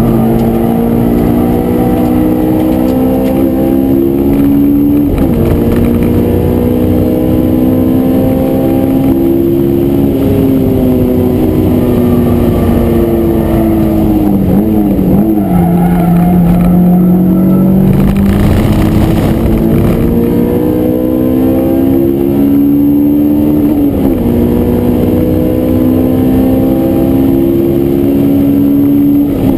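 Honda S2000's inline-four engine under hard track driving, heard from inside the cabin: the revs climb and step down at an upshift about five seconds in, climb again, then fall under braking with quick downshift blips around the middle. After a short steady spell at lower revs it pulls hard again, with another upshift a few seconds before the end.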